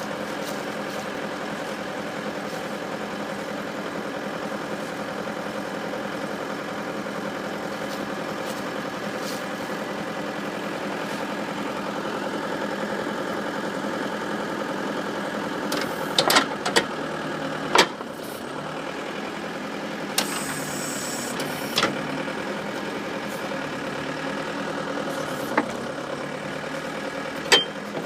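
Bobcat 863 skid-steer loader's diesel engine running steadily while it works the backhoe attachment. Several sharp metallic clanks come in the second half.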